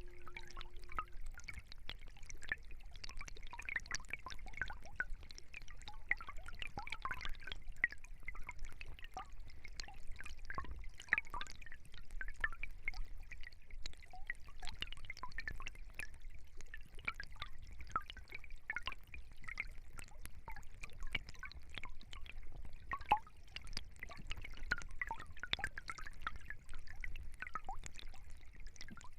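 Small stream trickling and babbling: a steady, irregular patter of little gurgles and drips.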